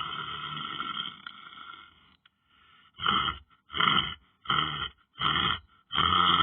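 A man snoring: a long snore fading out over the first two seconds, a short pause, then four short snorts about two-thirds of a second apart, and another long snore starting near the end.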